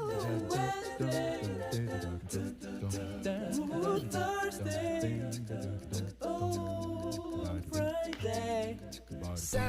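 Background music: a song with singing voices held over steady low notes.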